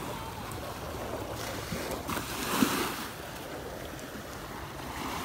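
Small waves washing onto a sandy shore close by, swelling louder for a moment between two and three seconds in.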